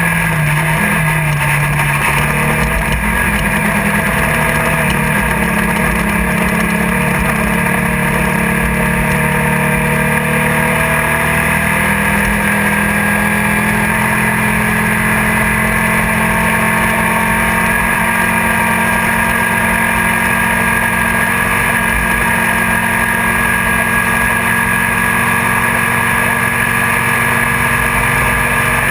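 Engine of a Class 1600 off-road race car running hard at fairly steady revs, heard from inside the car with constant road and wind noise. The pitch wavers briefly in the first couple of seconds, then holds.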